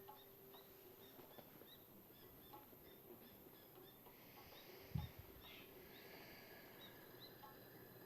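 Faint bird chirps in the background, short high calls repeated many times, over a near-silent room, with one dull low thump about five seconds in.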